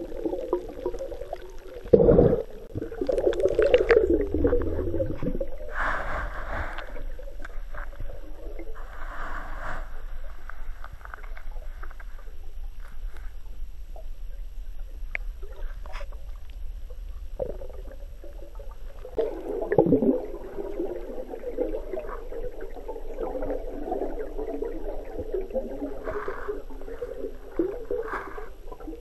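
Muffled underwater sound picked up by a camera below the surface: gurgling water movement and bubbles, with a dull knock about two seconds in and another about twenty seconds in.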